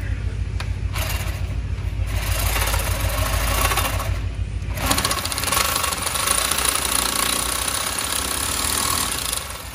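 Corded reciprocating saw cutting through a steel truck front spindle, trimming the factory spindle so the new brake caliper bracket will bolt on. The blade's rapid strokes chatter steadily, with a brief let-up about four seconds in and fuller cutting after it.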